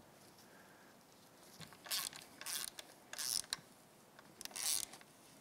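Hand socket ratchet clicking in four short bursts while it runs in the oil filter cover bolts on a Honda CRF450R engine. The first burst comes about two seconds in.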